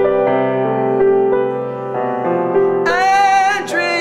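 A grand piano played in slow, sustained chords. About three seconds in, a voice comes in over it singing one high note with vibrato.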